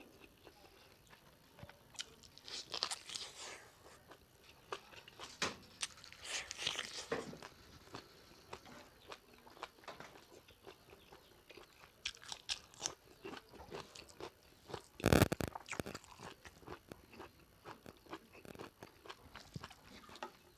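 Close-up chewing and biting on pork leg curry, with many short crunching clicks, and one loud thump about three-quarters of the way through.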